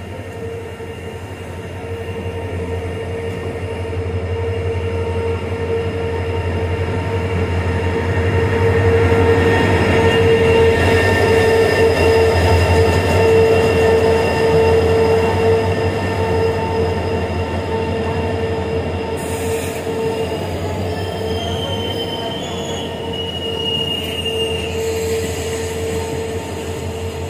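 Indian Railways passenger train pulling slowly into the platform, its coaches rumbling past with a steady high squeal as it slows to a stop. It grows louder to a peak about halfway through, then eases as the train comes to rest.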